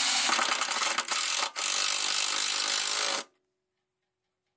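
Cordless drill running, its bit drilling through a thin aluminum cover plate. The noise is steady, dips twice near the middle, and stops suddenly about three seconds in.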